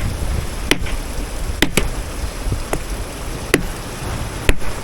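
Hammer tapping a hard stone nodule five times, about one blow a second, each strike a sharp ringing clack, to crack it open and see whether an ammonite is inside. There is a low wind rumble on the microphone.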